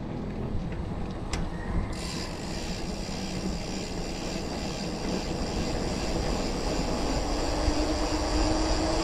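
Road noise and low rumble on the microphone from riding along a busy highway. About seven seconds in, a motor vehicle's engine drone comes in and grows louder to the end.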